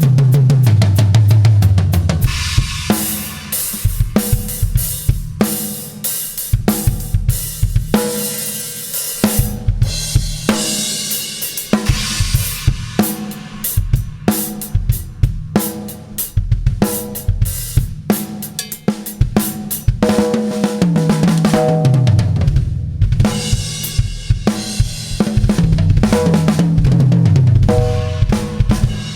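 Tama drum kit played in a groove of kick drum, snare, hi-hat and cymbals. Tom fills step down in pitch from high tom to floor tom near the start, again about 21 seconds in, and again near the end.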